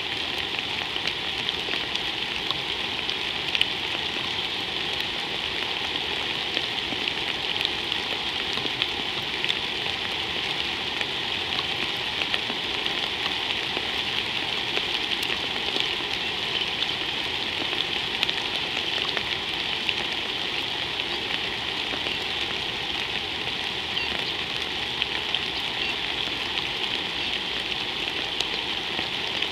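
Steady rain falling on water and ground: an even hiss scattered with many small drop ticks.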